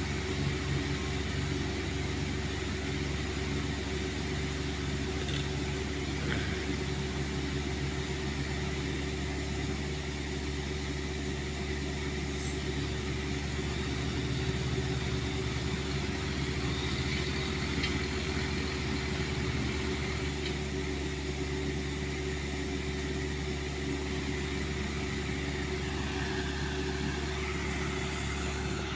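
Diesel engine of a small tracked excavator idling steadily. A second engine note rises in pitch near the end.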